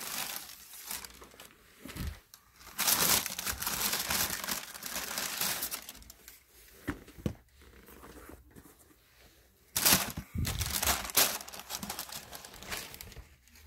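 Tissue paper rustling and crinkling as sneakers are unwrapped from a shoebox, in uneven bouts: a long loud stretch about three seconds in and a sharp one around ten seconds in.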